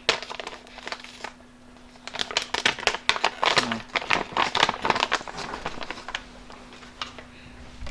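Compostable plastic-film stand-up pouch crinkling and crackling as it is handled and its zipper pressed shut, in two spells of dense crackles with a short lull between. A faint steady hum runs underneath.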